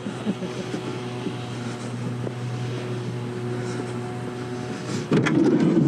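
Minivan engine idling with a steady low hum, with a few light knocks over it. A louder sound with shifting pitch comes in near the end.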